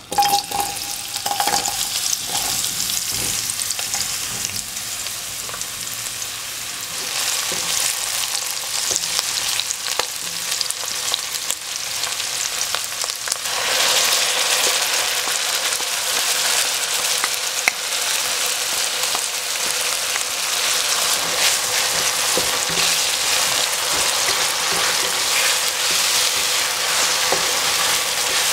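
Chopped onion hits hot oil in a nonstick wok and sizzles at once with a steady hiss. About halfway through, a blended spice paste goes in and the frying gets louder as the mixture is stirred, with small scraping clicks.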